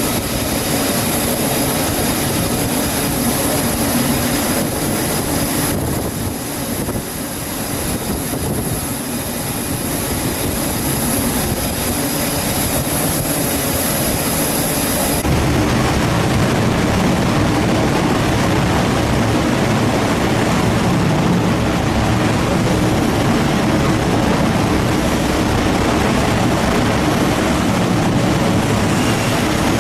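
F-35C Lightning II jet engine noise on a carrier flight deck. A high steady whine carries through the first half, then the sound changes abruptly about halfway through to a louder, lower, more even jet noise without the whine.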